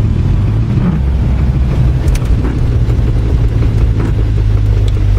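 Vehicle engine running with a steady low rumble and a knocking sound.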